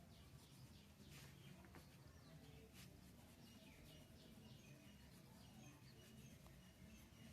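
Near silence: faint room tone with a low hum and a few faint, quick high chirps or scratchy ticks.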